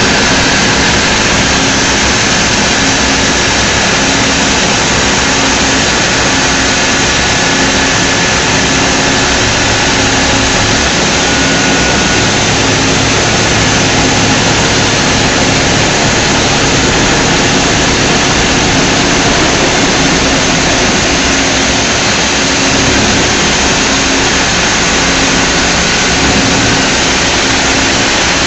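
TERA THL300 high-frequency spindle running at speed while a small ball end mill cuts S45C steel under an air-mist coolant spray. The sound is a loud, steady hiss with a faint high tone running through it.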